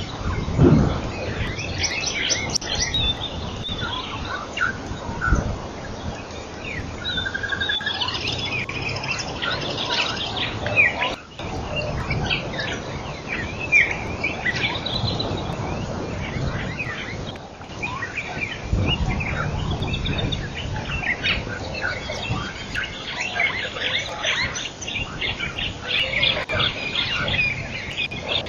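Many small birds chirping and twittering in quick, overlapping calls, with a low rumble now and then underneath.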